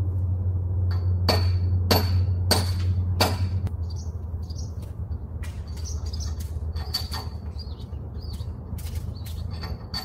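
A series of sharp metallic clinks with a short high ring as the metal antenna tube and its mounting hardware are handled: four about half a second apart after the first second, then more scattered ones later. Birds chirp over a low steady rumble.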